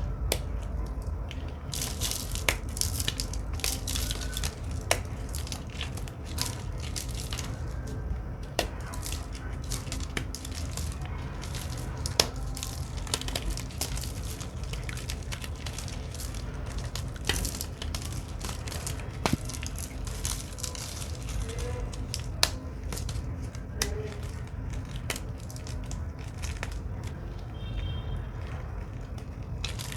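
Microwaved bar soap, puffed up and brittle, being crushed by hand: a continuous dry crunching and crackling with many sharp snaps, over a steady low hum.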